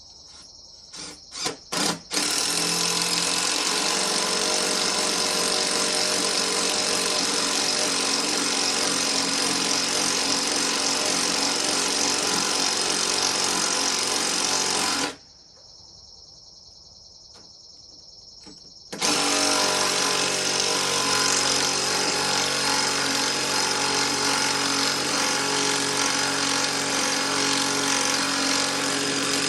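Cordless drill with a brushed motor: a few short trigger blips, then a long steady run at full speed. It cuts off suddenly for about four seconds, leaving crickets chirping, then runs steadily again.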